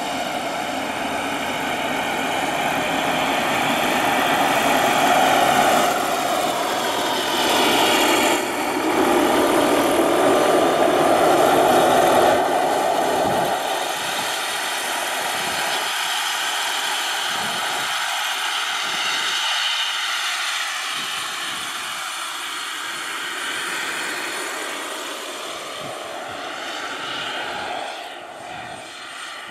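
Radio-controlled scale model Kamov Ka-32 helicopter in flight, its power plant and rotors running with a steady pitched whine. It grows louder as the model passes close, at its loudest about a third of the way through, then fades as the model flies off near the end.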